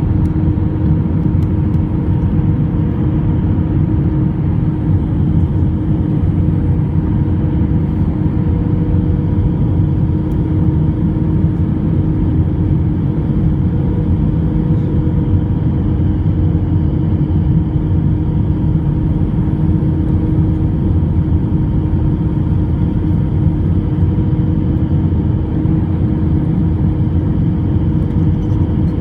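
Airbus A321 airliner's jet engines running steadily, a loud even rumble with a constant hum.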